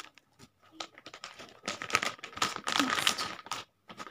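Clear plastic cover and paper keepsakes being handled, a run of irregular crinkling rustles and clicks, loudest through the middle.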